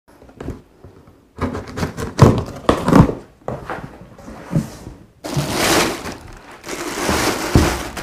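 Unboxing handling noise: a string of short knocks and scrapes as a cardboard box is cut and its flaps are opened, then from about five seconds in a longer crinkly rustle of a plastic bag being pulled off an amplifier.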